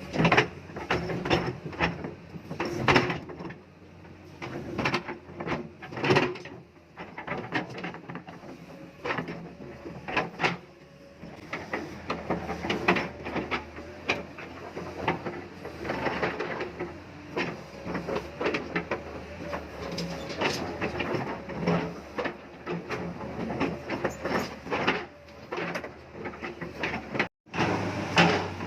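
Backhoe working in mud: a steady low engine drone under irregular knocks and clanks. The sound cuts out for a moment near the end.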